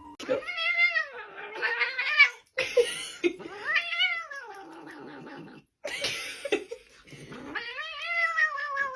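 Domestic cat yowling: three long drawn-out calls, each rising and then falling in pitch.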